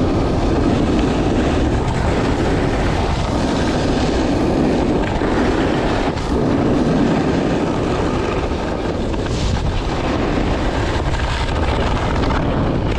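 Snowboard sliding and carving over groomed, corduroy snow: a steady, loud scraping rush that swells and eases with the turns, mixed with wind rushing past the board-mounted or body-worn camera's microphone.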